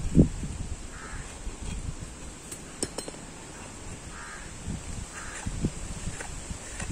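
Crows cawing a few times in the background. A dull thump just after the start is the loudest sound, and there are a couple of sharp clicks about three seconds in.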